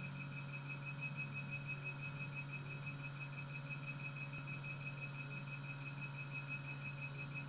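Mediostar diode hair-removal laser running: a steady low hum with a high tone pulsing evenly, about six times a second, as the handpiece fires repeated pulses while it glides.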